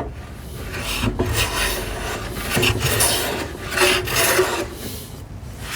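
Hand plane shaving wood: a series of long scraping strokes, about one a second.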